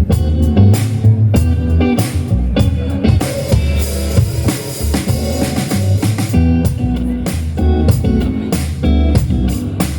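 A live band playing an upbeat number: guitar and drum kit over a steady, walking low bass line, busier and brighter in the middle.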